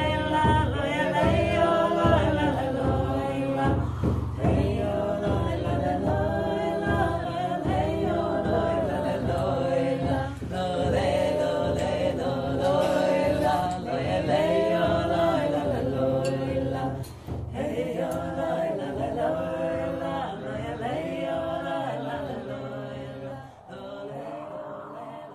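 Chanted vocal music: voices singing a chant over a steady low drone, fading out near the end.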